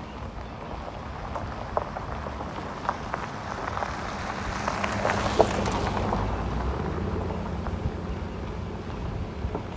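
Truck driving slowly over a rough dirt road, heard from a phone held outside the vehicle: a low engine hum under the crackle of tyres on the road, with scattered clicks of stones and bumps. Wind noise on the microphone swells around the middle.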